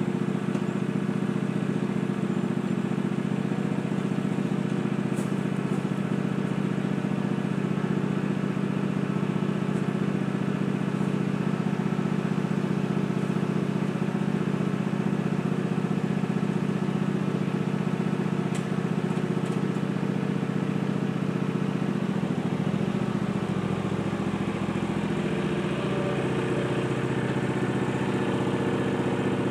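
Riding lawn mower's engine running steadily; about twenty-two seconds in its note changes as the mower starts driving forward.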